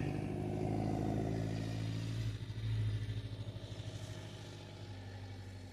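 A vehicle's engine running, growing steadily fainter as it moves away.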